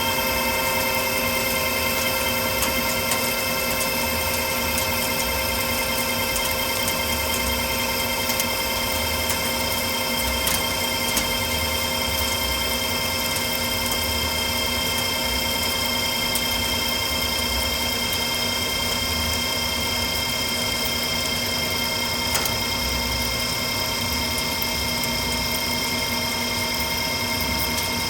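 Precision Matthews metal lathe running steadily with a whine of several steady tones while taking a facing pass of about 60 thou on a pipe flange.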